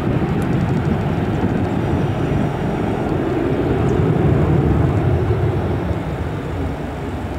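Boeing 737-400's two CFM56-3 turbofan engines at take-off thrust, a steady low rumble as the jet climbs away, easing a little near the end.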